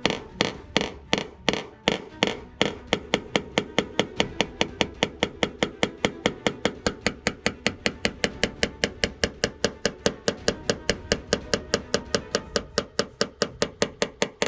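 Steady rapid light hammer taps on a tap-down tool working a car body panel, knocking down high spots in paintless dent repair. About three taps a second at first, quickening to about five a second a couple of seconds in.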